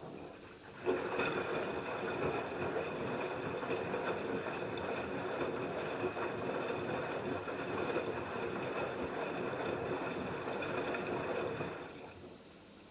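LG F10B8QD1 direct-drive front-loading washing machine's drum turning. The motor starts suddenly about a second in, runs steadily with a constant whine for about eleven seconds, then winds down near the end.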